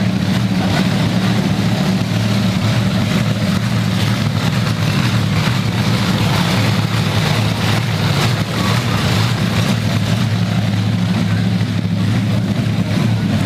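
Many hot rod and classic car engines running together at once, a steady low rumble.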